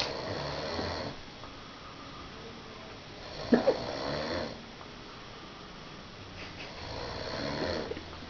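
Person snoring in sleep: three slow snores about three seconds apart, the middle one the loudest.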